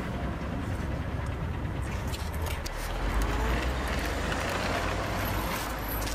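Road traffic going by, a steady rumble that swells about three seconds in as a heavier vehicle passes.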